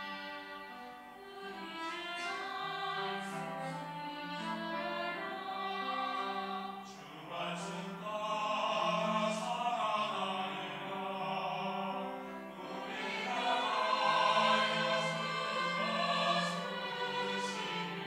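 Mixed church choir of women's and men's voices singing a sacred anthem in parts, swelling louder about halfway through and again at a peak near three-quarters of the way.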